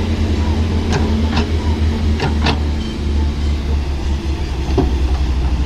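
Excavator's diesel engine running steadily under work, with a few sharp clanks about a second in, around two seconds in and once more near the end.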